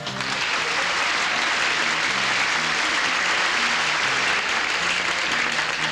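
Studio audience applause breaking out suddenly after a punchline and easing off near the end, with a band's bass notes faintly underneath.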